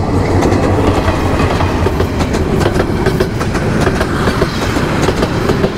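Train rolling past on the rails, a loud, steady clatter of wheels with many rapid clicks.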